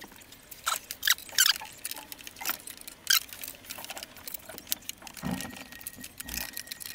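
Small metallic clicks and rattles of a bobbin being fitted into a vintage Singer sewing machine's bobbin compartment, with the parts handled by hand. A softer thump comes about five seconds in, and a faint steady high tone starts near the end.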